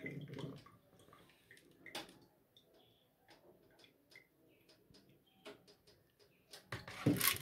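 Wet, washed hulled wheat draining in a plastic colander: faint scattered ticks, then a louder rattle of the grains shaken in the colander near the end.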